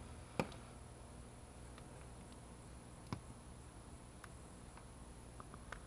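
Faint handling noise from an impact drill's rubber power cord being picked up and turned over: two light, sharp knocks, about half a second in and about three seconds in, and a few smaller clicks, over a low background hum.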